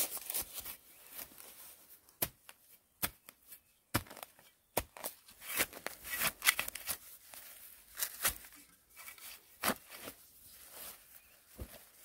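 A rudimentary hand tool cutting and prying into grass turf and soil: irregular sharp strikes and short scraping bursts.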